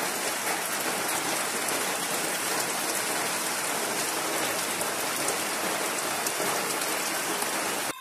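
Steady rain falling on wet foliage and a pool of muddy floodwater: a dense, even hiss dotted with the hits of single drops.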